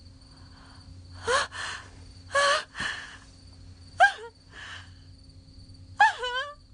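A young woman crying out in pain: four short anguished sobbing wails, rising and falling in pitch, the last one shaking into broken sobs.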